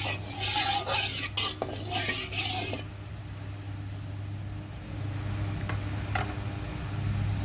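Metal utensil stirring and clinking in a wok of heating cooking oil, with a hiss for the first three seconds or so, then a quieter steady low hum with a few light clinks.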